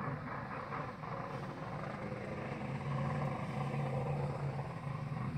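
An engine runs steadily with a low drone, which grows stronger about halfway through.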